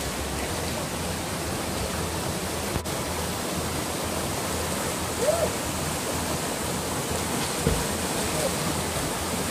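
Steady rush of a small waterfall cascading over rocks into a gorge pool. A short, voice-like call rises and falls about halfway through, and a brief thump comes a couple of seconds later.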